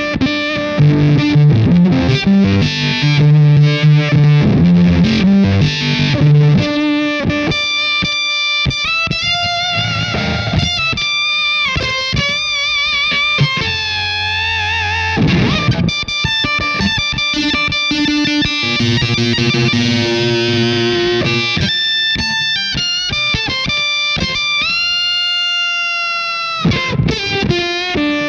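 Electric guitar played through a Fender Shields Blender octave-up fuzz pedal, set mellow with the tone backed off and on the neck pickup so the upper octave stands out. It opens with low, thick chords, then moves to single notes with wavering bends about halfway through and again near the end.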